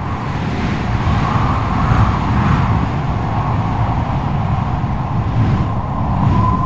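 Strong wind blowing with a low rumble and a whistling howl that wavers in pitch, settling into a steadier whistle near the end.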